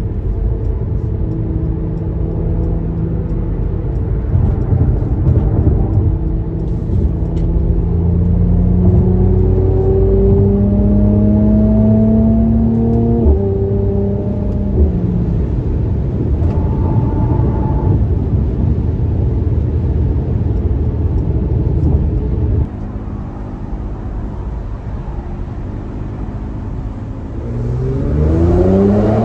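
Mercedes-AMG C43's twin-turbo V6 engine and exhaust heard from inside the cabin while driving: the engine pulls with rising pitch through a gear, drops sharply at an upshift, settles quieter for a stretch, then climbs again under acceleration near the end.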